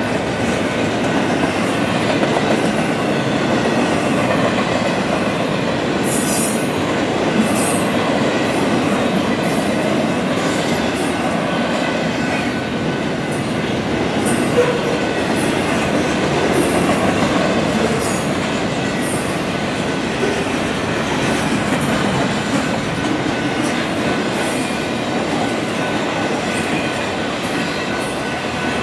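Double-stack intermodal well cars rolling past at speed: a steady, loud rush and rumble of steel wheels on rail. Short high-pitched wheel squeals come and go through the middle, along with a few sharp clacks.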